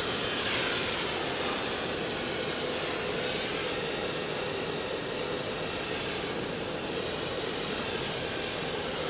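Oxy-acetylene cutting torch hissing steadily as its oxygen jet cuts through steel pipe.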